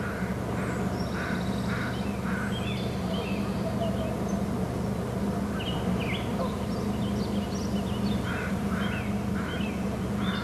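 Birds calling: two runs of short, repeated harsh calls, one near the start and another from about eight seconds in, with scattered higher chirps over a steady low hum.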